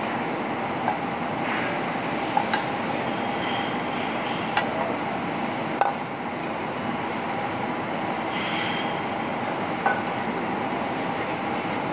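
Rib eye basted with teriyaki sauce sizzling over a charcoal grill: a steady rushing sizzle with a faint hum underneath and sharp pops and crackles every second or two.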